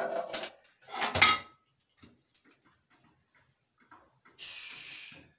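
Metal cake pans knocking and clattering against the counter and each other as cakes are turned out. There is a sharp ringing knock at the start and a louder rattling clatter about a second in, then a soft, short hiss near the end.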